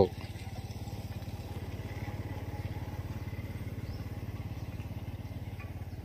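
A small engine running steadily at idle: a low, even pulsing drone.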